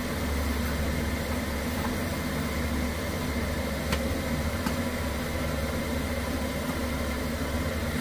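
Steady low mechanical hum with an even hiss, typical of a kitchen range hood's exhaust fan running, with one faint light clink about four seconds in as a pot is handled on the stove.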